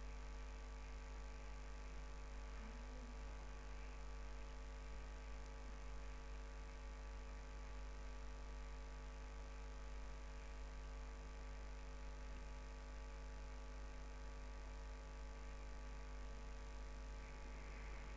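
Steady electrical mains hum and buzz at a low level, unchanging throughout.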